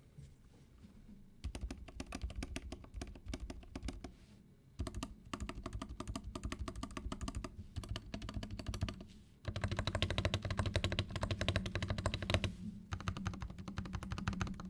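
Fast typing on a custom Epomaker GK87 mechanical keyboard with pre-lubed Akko CS Vintage White switches and PBT keycaps, a clacky sound in a foam-dampened case. The typing comes in three runs with short pauses before each; the third, starting about halfway through, is the loudest.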